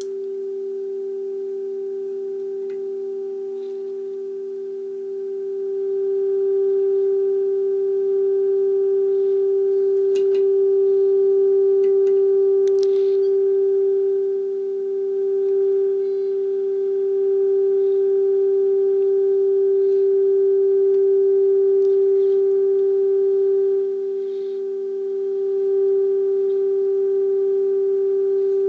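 A steady test tone from an HMV 475 valve radio's loudspeaker: the signal generator's modulation tone passing through the set while its IF transformers are adjusted. The tone gets louder about six seconds in and dips briefly twice, with a few faint clicks.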